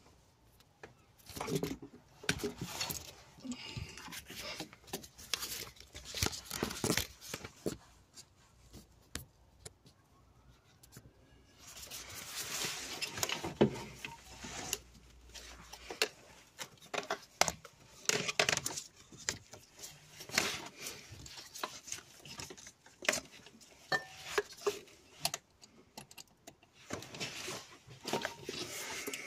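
Irregular clicks, knocks and light metallic clinks of tools and parts being handled in a car's engine bay, with a few seconds of rubbing noise near the middle.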